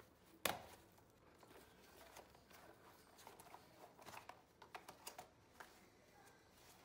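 Faint handling of a motorcycle knee guard's plastic shell and fabric padding. There is one sharp click about half a second in, then scattered soft ticks and rustles as it is unfolded.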